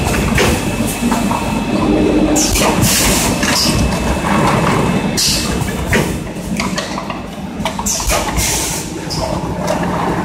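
Six-cavity automatic PET stretch blow molding machine (BM-A6, 6000 bottles per hour) running: a steady mechanical rumble and clatter, with a loud hiss of compressed air about every three seconds, three times, as the blowing air vents at the end of each moulding cycle.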